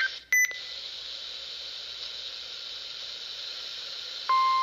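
Weather radio hiss after a brief burst of SAME alert data tones near the start. About four seconds in, the steady 1050 Hz NOAA Weather Radio warning alarm tone comes on.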